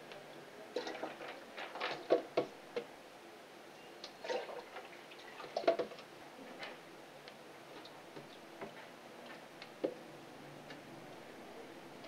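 Water poured from a plastic jug into a glass aquarium during a water change: irregular splashes and clicks, the loudest about two and six seconds in.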